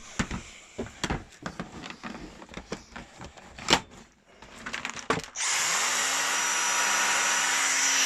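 Clicks and knocks from the Dyson V6 Animal cordless stick vacuum being handled. About five seconds in, its motor switches on, spins up quickly and settles into a steady run with a high whistling whine.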